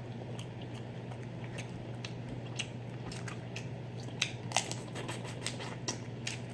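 Close-up eating of boiled shrimp and crawfish: irregular small clicks and crackles of shells being peeled and mouth smacking, a few sharper ones about four seconds in, over a steady low hum.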